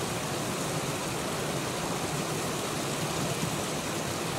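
Small waterfall and stream running over rocks: a steady, even rush of water.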